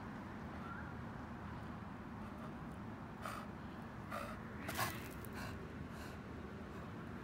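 American bully dog panting, a run of short breaths from about three seconds in, the loudest near the five-second mark, over a steady low background noise.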